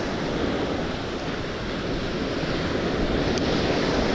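Ocean surf breaking and washing on a beach: a steady rush of noise.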